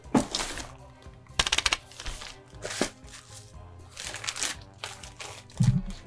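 Quiet background music under the handling of a cardboard shipping box being opened. A quick run of clicks comes about one and a half seconds in, with scattered knocks and scrapes and a low thud near the end.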